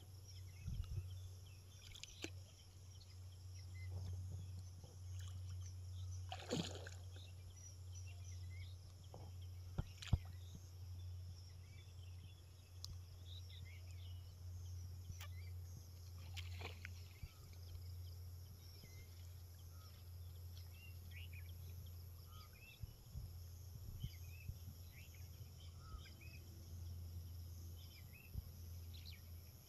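Faint outdoor ambience: many small high chirps of birds and insects over a steady low hum, with a few short sharp sounds, the loudest about ten seconds in.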